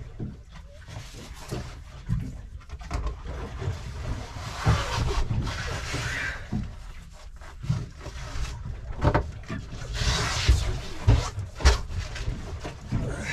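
Handling noises on a boat's deck as a tope shark is got ready for release: thumps and a few sharp knocks, low wind rumble, and a man's heavy breathing from the effort, with two longer breathy rushes about four and ten seconds in.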